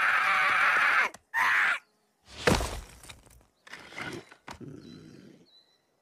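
Animated Groot's voice for about a second, then a sharp thud about two and a half seconds in as he falls face-first onto rocky ground, followed by softer scuffs and rustles in the dirt.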